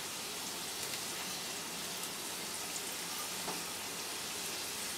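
Singaras (Bengali vegetable samosas) deep-frying in oil in a kadai, with a steady, quiet sizzle. They are being fried slowly on a low flame so the filling cooks through.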